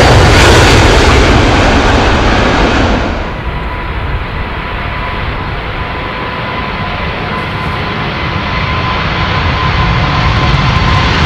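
Airbus A380's four jet engines at takeoff thrust, a loud, close roar that cuts off about three seconds in. After the cut, an A380 heard from farther off: a deeper jet rumble with a faint steady whine, growing louder toward the end.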